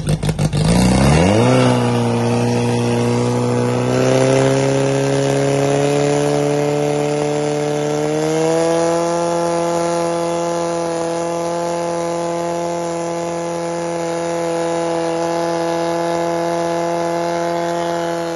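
Portable fire pump's engine goes from a pulsing idle to full throttle about a second in. It then runs at high revs with a steady pitch that steps up slightly twice, while it pumps water out to the attack hoses.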